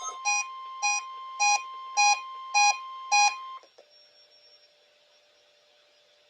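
NOAA Weather Radio 1050 Hz warning alarm tone, a steady high tone, marking the weekly test. Over it an electronic beep repeats six times, nearly twice a second. Both stop about three and a half seconds in, leaving only faint hum and hiss.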